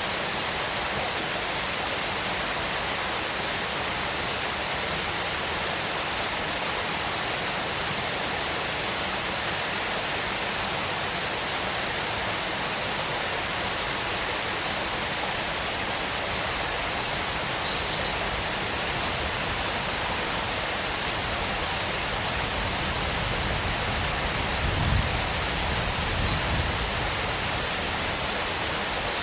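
Waterfall: a steady, unbroken rush of falling water. In the second half a bird calls a string of short high up-and-down notes.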